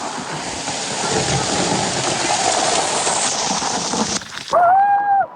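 Heavy water from a waterfall pouring down onto a small boat, a dense rain-like hiss that cuts off abruptly about four seconds in. Near the end comes a brief, loud high-pitched tone that rises and then holds.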